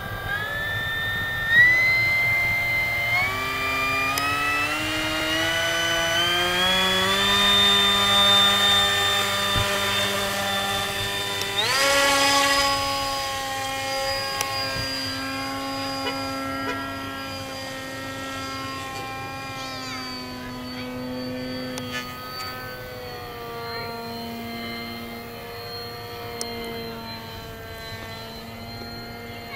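Electric motor and propeller of a small scratch-built foam RC park jet, a whine whose pitch climbs in steps over the first several seconds as the throttle is advanced. It jumps higher about twelve seconds in, then steps up and down with the throttle as the plane flies.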